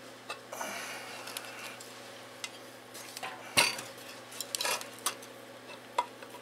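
Metal clinks, knocks and scraping from handling a stripped Briggs & Stratton Raptor 5 hp engine: the crankcase and cylinder block turned over on the workbench and the camshaft gear worked loose. A few sharp knocks, the loudest about three and a half seconds in.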